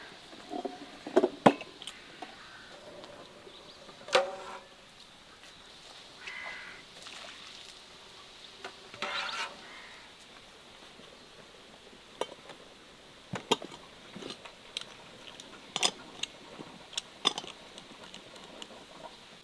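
Large glass jars of fruit compote knocking as they are set down on a wooden table, with a couple of loud knocks about a second in and another near four seconds, then a scatter of lighter clicks and taps of glass and metal lids.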